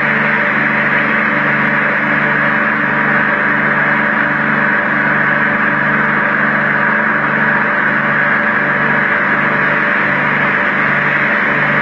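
Automatic jet car wash running: a steady hiss of high-pressure water spray over a low machine hum that pulses slowly and evenly.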